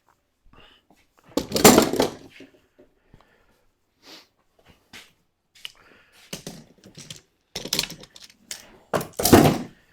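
Metal woodworking clamps being taken off and set down: a series of clanks and knocks, loudest about two seconds in and again near the end.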